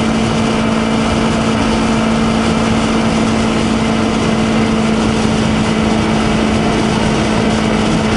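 2020 Honda CBR250RR's parallel-twin engine running steadily at highway cruise in sixth gear, around 7,000 rpm, holding one even pitch. A steady rush of wind noise runs underneath.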